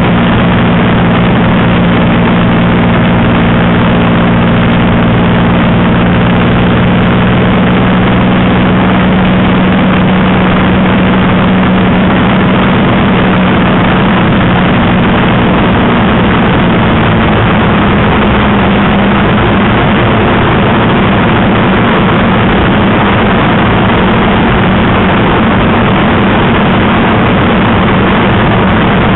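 Spitfire's piston V12 engine running steadily in cruise flight, heard from inside the cockpit as a loud drone mixed with rushing slipstream. The engine note shifts slightly about two-thirds of the way through.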